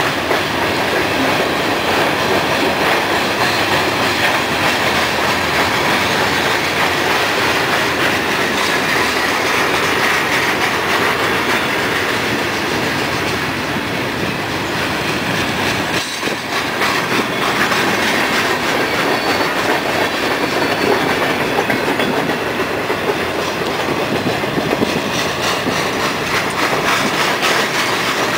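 Freight train cars, open hoppers and double-stack intermodal containers, rolling past. Steel wheels on the rails make a steady, loud rolling noise that doesn't let up.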